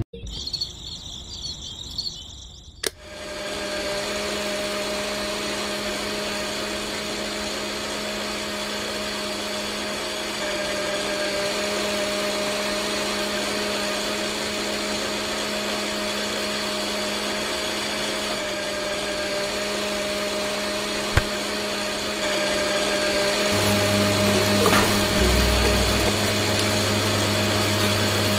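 Small electric motor of a miniature belt-driven grape juice crusher switching on with a click about three seconds in, then running with a steady hum as it turns the flywheel. Near the end the hum grows louder and a deeper tone joins it.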